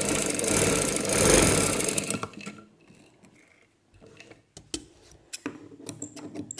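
Sewing machine running fast, stitching a seam along a strip of fabric, then stopping about two seconds in. Light clicks and rustling of the fabric being handled follow.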